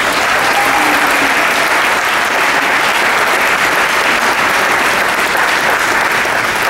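Audience applause: many people clapping steadily and densely after an acceptance speech.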